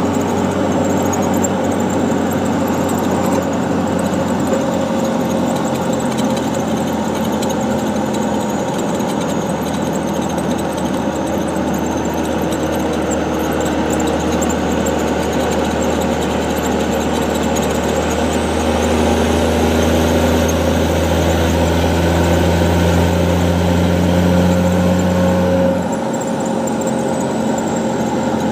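A vehicle with an NV5600 six-speed manual transmission running, with a steady deep drone and a noise the owner calls weird from the transmission. About two-thirds of the way through a faint high whine rises, then falls away near the end as the deep drone drops off.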